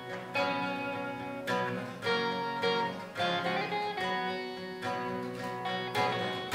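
Acoustic guitar strumming chords, with an electric guitar played through a small amplifier: an instrumental passage of a pop song, a chord struck about every half second and left to ring.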